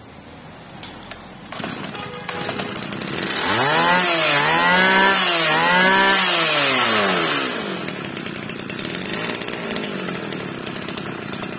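Tanaka brush cutter's small two-stroke engine running. It is revved up twice in quick succession a few seconds in, then drops back to a steady lower speed.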